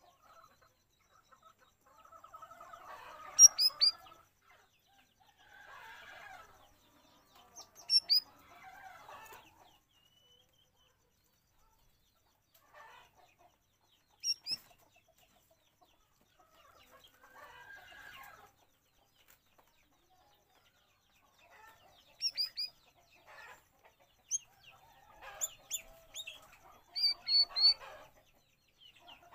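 Cucak rawis bird calling in fits: clusters of short, sharp high notes that come several times, between stretches of harsh chattering.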